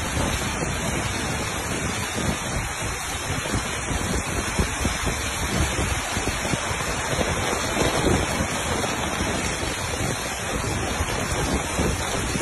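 Steady rushing of heavy rain in a windstorm, with gusts buffeting the microphone in low, uneven rumbles.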